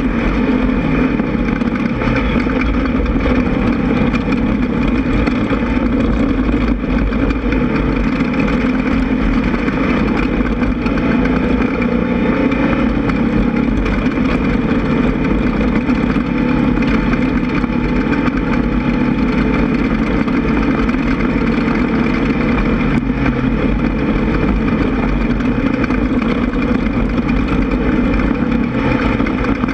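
Air-cooled 1600cc VW flat-four engine of an off-road race buggy running hard and steady under load, with a constant rush of noise behind it.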